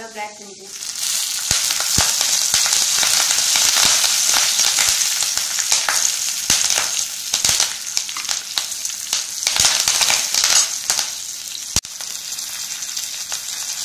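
Ground fennel, garlic and cinnamon sizzling and crackling in hot oil in a nonstick kadai. The sizzling grows louder about a second in as curry leaves go into the oil. A steel slotted spoon stirs the pan, with occasional sharp clicks.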